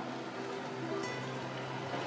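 Soft background music with steady held tones.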